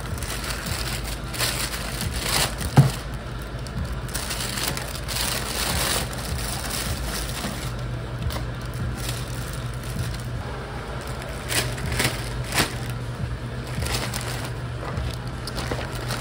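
Thin plastic takeout bags rustling and crinkling in irregular bursts while coffee cups and sandwich boxes are packed into them, with one sharp knock about three seconds in. A low steady hum comes in about halfway.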